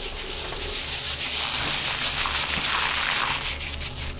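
Bombardier beetle's defensive spray: a rasping, crackling hiss of rapid pulses that thickens in the middle and thins near the end.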